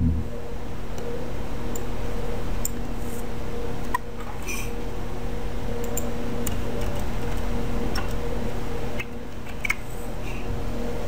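Computer mouse and keyboard clicks, a handful of short sharp clicks scattered through, over a steady low electrical hum and hiss.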